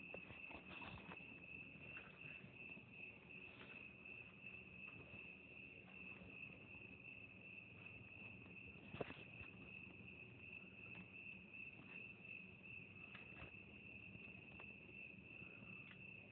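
Crickets chirping in a steady, continuous high-pitched chorus, with a few faint clicks, one sharper about nine seconds in.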